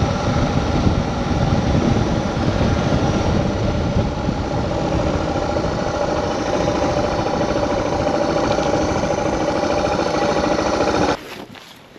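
Motorcycle engine running steadily with wind rushing past while riding on the road. It cuts off suddenly near the end.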